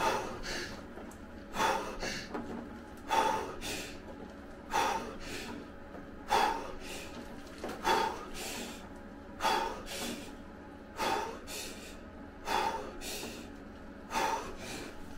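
A man breathing hard and fast in an ice bath in reaction to the ice-cold water: sharp gasping breaths in and out, one about every one and a half seconds, steady in rhythm.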